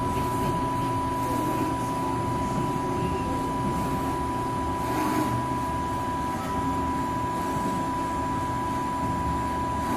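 LVD Strippit V20 CNC turret punch press running without punching: a steady low hum with a constant high whine.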